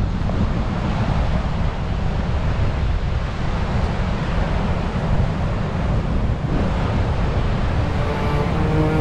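Wind buffeting the microphone over the wash of heavy surf breaking against the rocky shore, a steady rushing noise. Faint music comes in near the end.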